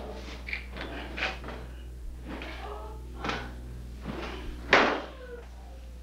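A man being beaten: several sharp blows land a second or more apart, the loudest near five seconds, with short cries of pain between them.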